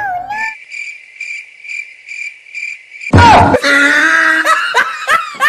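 Cricket chirping sound effect: a high chirp repeating about twice a second over silence. About three seconds in it cuts off with a sudden loud hit, followed by a loud wavering, pitch-sliding cry.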